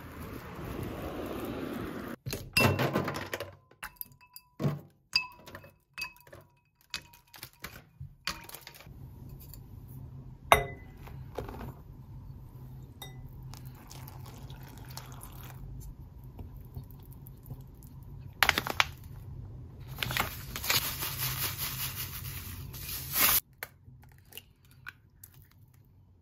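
Kitchen sounds: a glass mixing bowl and utensils clinking and tapping, with a few seconds of water pouring near the end. It opens with a moment of wind on the microphone outdoors.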